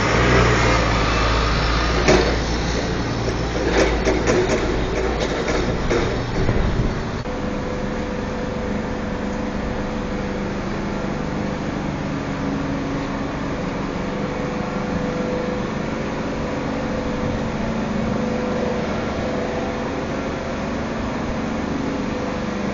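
Heavy machinery engine running, with a strong low rumble and several sharp knocks and clanks in the first seven seconds. After that it settles to a steadier hum with a faint whine.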